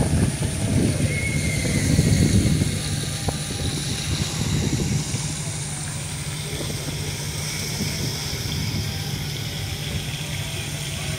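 Steady low hum of a ship's engines and machinery, with faint voices in the first couple of seconds.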